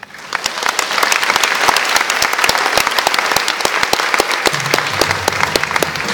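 Audience applauding at the end of a children's choir song, the clapping swelling in as the singing stops. A low held tone sounds under the clapping from about four and a half seconds in.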